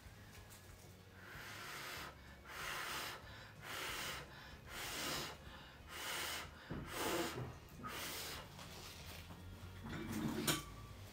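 About seven short puffs of blown air, each under a second long, as wet acrylic paint is pushed across the canvas in a Dutch pour. A sharp click comes near the end.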